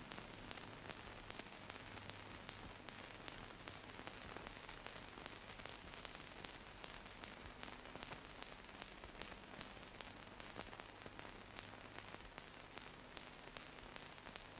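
Faint steady hiss with frequent small clicks and a low hum: the background noise of an old film soundtrack with no narration or music.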